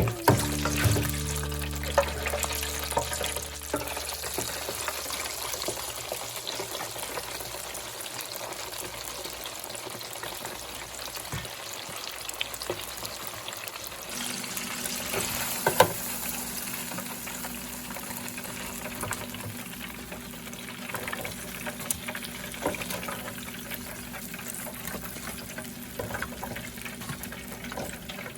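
Chicken pieces frying in hot oil, a steady sizzle with a few sharp pops and clicks.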